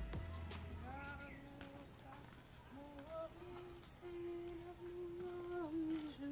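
A person humming a slow tune in held notes that step up and down, after background music fades out in the first second.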